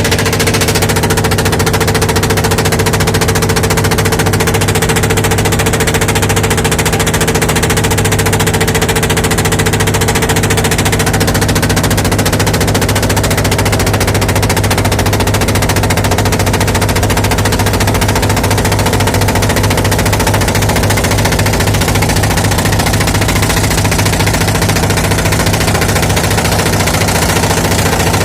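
Small engine running steadily at close range, its firing heard as a fast, even pulsing over a low steady hum.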